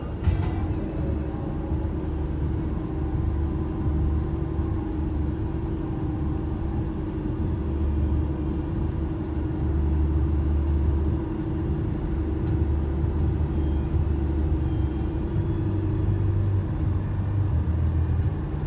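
Road noise inside a car cruising at highway speed: a steady low rumble from tyres and engine with a constant drone, and faint high ticks about twice a second.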